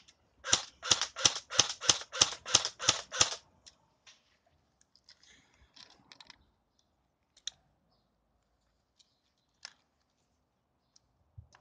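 Electric airsoft rifle firing a quick string of about nine shots, roughly three a second, for about three seconds. Then only faint, scattered clicks.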